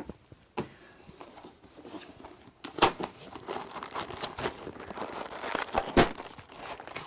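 A cardboard LEGO set box being opened by hand: crinkling and tearing of cardboard, with two sharp cracks, one a little under three seconds in and one about a second before the end.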